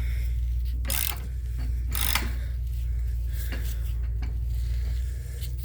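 Ratchet wrench clicking in irregular strokes as a seized brake-bracket fastener is slowly turned, over a steady low hum.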